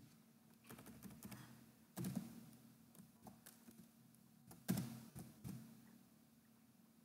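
Computer keyboard typing, faint, in a few short runs of keystrokes, with heavier key strikes about two seconds in and again near five seconds.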